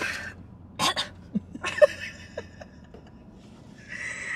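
A woman giggling in short, separate bursts, with a breathy laugh near the end.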